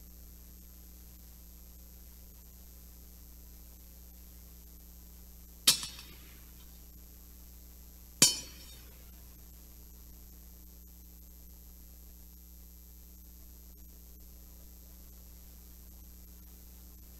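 Two sharp metallic clinks about two and a half seconds apart, each with a short ringing tail: metal communion vessels, a gold ciborium and chalice, being handled on the altar.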